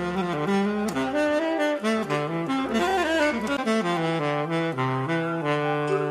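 Tenor saxophone playing a jazz line of quick, changing notes, with a wavering figure midway, then settling onto a long held note near the end.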